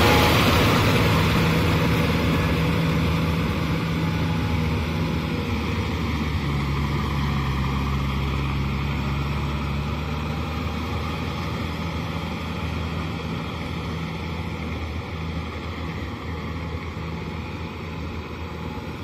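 Kubota M6040 SU tractor's diesel engine running steadily under load as it tills a flooded rice paddy, its tyres and implement churning through the mud. The sound fades as the tractor moves away.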